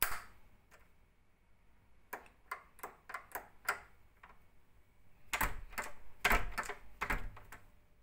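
Night latch door lock being worked by hand, clicking. There is one sharp click at the start, then a run of small clicks, then a louder cluster of clicks and knocks from about five seconds in.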